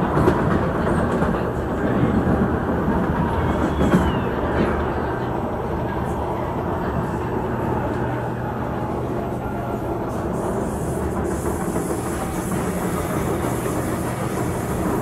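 Singapore MRT train running at speed, heard from inside the carriage: a steady rumble of wheels on rail with a low motor hum and sharp knocks near the start and about four seconds in. A high hiss joins the rumble about ten seconds in.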